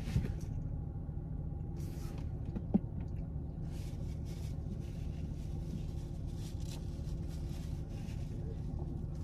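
Steady low rumble of a car idling, heard from inside the cabin, with a few faint paper-napkin rustles and one short light click about three seconds in.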